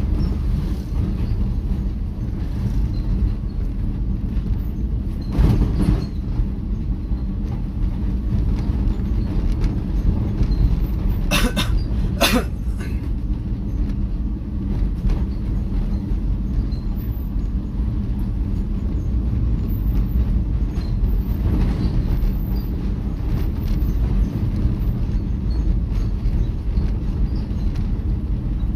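Steady low rumble of a vehicle driving along a village road, engine and road noise heard from the moving vehicle. Two short sharp sounds about a second apart come near the middle.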